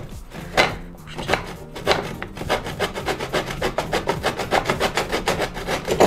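Hand saw cutting through a wooden board in a mitre box in rapid back-and-forth strokes. The first few strokes come about half a second apart, then the pace picks up to about four strokes a second.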